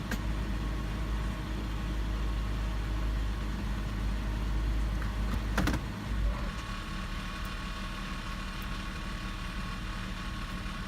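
2006 Toyota 4Runner's 4.0L V6 running at idle, the truck's owner chasing a rattle that comes only in Drive. There is a sharp click at the start and a louder clunk a little over halfway. After the clunk the low rumble eases into a lighter, fluttering sound.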